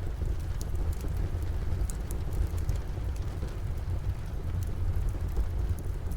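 Wood fire crackling in a fireplace, with irregular sharp pops a few times a second over a steady low rumble of falling rain.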